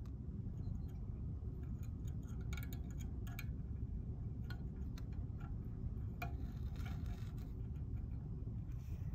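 Faint scattered ticks and small clicks of fine copper shear wire being wrapped by hand around a toggle-switch guard's contact point, over a steady low rumble of room noise.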